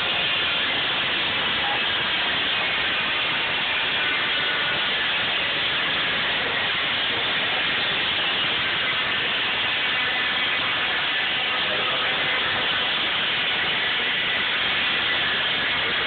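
Water-driven sawmill machinery running: a loud, steady rushing noise with a faint hum of tones under it.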